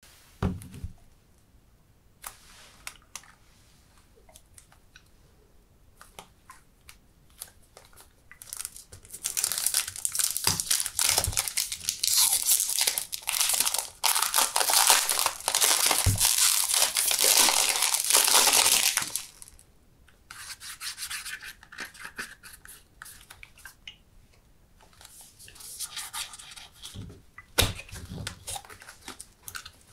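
Cellophane wrap on a cardboard perfume box being torn and peeled off, with loud, dense crinkling for about ten seconds in the middle. Before that come a few light clicks. After it there is quieter rustling, and the box's cardboard end flap is pulled open near the end.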